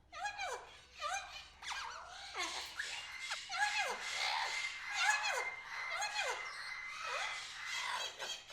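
Many aviary birds calling together: overlapping squeaky calls that rise and then fall in pitch, repeating every second or so, with a thin held whistle through the middle.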